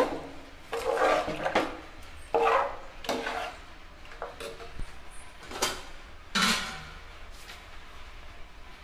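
Steel ladle stirring thin curry in an aluminium pressure cooker: the ladle scrapes and clinks against the pot in about six irregular strokes, and the stirring stops about a second and a half before the end.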